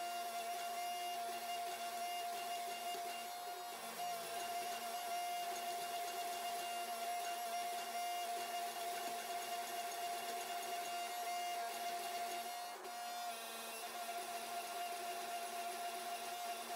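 Hydraulic forging press's pump and motor running with a steady hum and a constant whine, while the press fullers out a hot steel blade blank.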